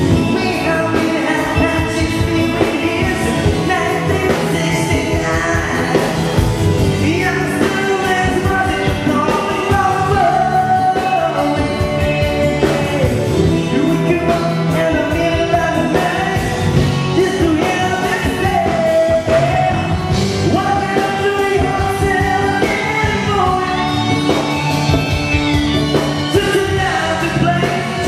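A singer singing a rock song live into a microphone over loud, continuous band accompaniment.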